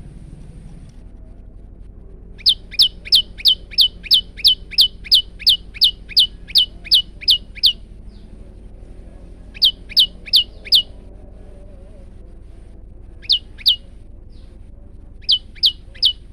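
Male prenjak lumut calling: a fast run of about fifteen sharp, down-slurred chirps at roughly three a second, then shorter bursts of four, two and three chirps.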